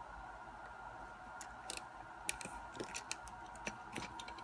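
Padlock being set into a bench vise: scattered light metal clicks and taps, unevenly spaced, as the lock is positioned between the jaws.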